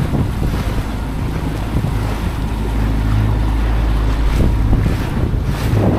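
A small boat under way: its motor runs with a steady low hum, with wind buffeting the microphone and water rushing past the hull.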